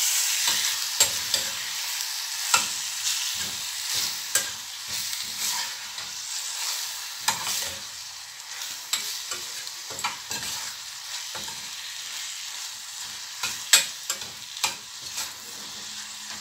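A metal spoon stirring fish filling with onions and pepper in a small stainless-steel saucepan, clinking and scraping against the pan at irregular intervals over the sizzle of the filling frying. The sizzle eases off about halfway through.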